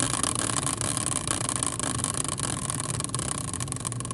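Homemade prize wheel, a caster wheel on its metal bracket, spinning on its axle with a steady whirring rumble and rapid ticking. The ticks space out toward the end as the wheel slows down.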